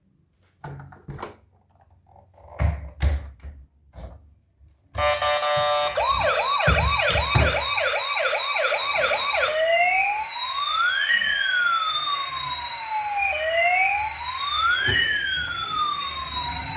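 A few plastic clicks and knocks, then about five seconds in a toy emergency vehicle's electronic siren switches on. It gives a fast yelp of about two cycles a second for some four seconds, then a slower wail with two tones sliding up and down past each other.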